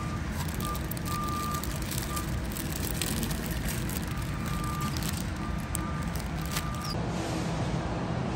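Warehouse store background hum with an electronic beep at one pitch going off again and again in beeps of uneven length. Through the middle come light crinkles of a plastic bag of marshmallows being handled.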